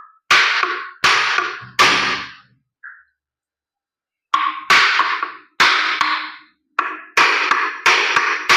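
Hammer blows on the rear bearing end of a cooler's exhaust fan motor, knocking it loose to open a motor seized by a rusted rear bearing. Three blows, each ringing briefly, then a pause of about a second and a half, then a quicker series of blows.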